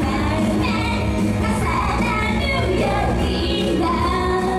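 Young female solo singer singing into a microphone over a pop backing track, the sung melody riding on a steady low backing.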